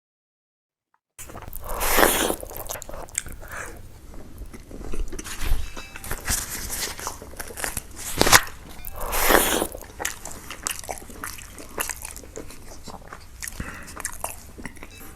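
Close-miked chewing and crunching of food, with wet mouth sounds and many sharp crunchy clicks. It starts about a second in, with louder crunches about two seconds in and again around eight to nine seconds, and cuts off suddenly at the end.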